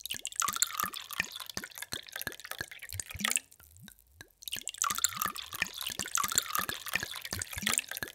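Water poured in a thin stream into a glass, splashing and bubbling with many quick plops, some rising in pitch. The pour breaks off for about a second a little past the midpoint, leaving a few drips, then starts again.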